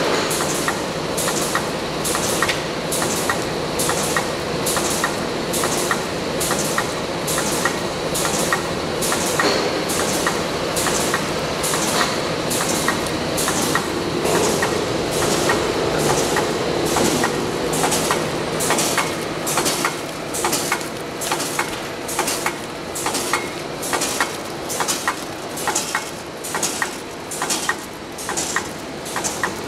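Reel-fed automatic die cutting machine (Bright Ever BE-P900) running, its die press cutting a paper web in a fast, steady rhythm of clattering strokes. The strokes stand out more sharply near the end.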